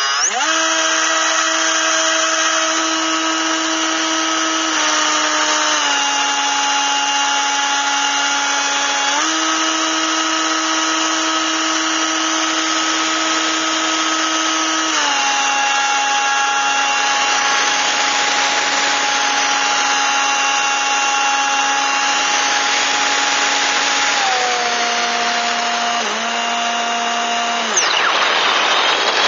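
Propeller motor of a radio-controlled model airplane, heard from a camera on board: it spools up at the start, then runs steadily with its pitch stepping up and down several times as the throttle changes. Near the end the motor note falls away and a rush of wind takes over as the plane dives.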